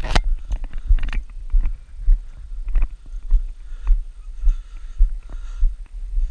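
Footsteps on a woodland path, picked up as rhythmic low thuds through the jostling body of a carried camera, about two steps a second. Rustling handling noise at the start and about a second in, as a hand brushes the camera.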